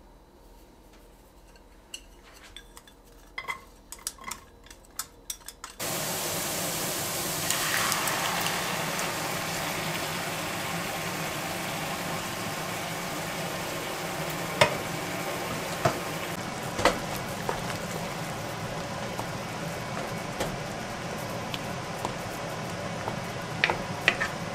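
Chopped onion and garlic sizzling in oil in a frying pan. A few light clicks come first, then the sizzle starts suddenly about six seconds in and runs steadily. Now and then a wooden spatula knocks against the pan as the sauce is stirred.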